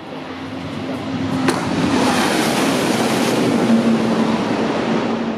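Superconducting maglev test train passing at high speed: a rushing roar of air that builds over about two seconds and stays loud, with a sharp click about a second and a half in.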